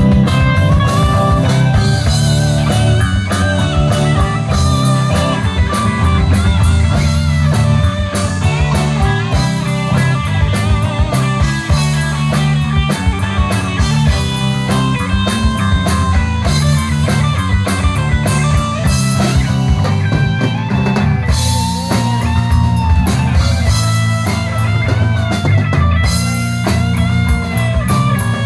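Rock band playing an instrumental passage: electric guitars over bass guitar and a drum kit, with no singing.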